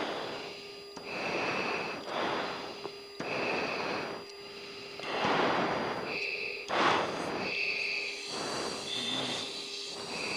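Breathing picked up by an oxygen-mask microphone on the F-16's hot intercom: loud breaths every second or two, over a steady cockpit hum.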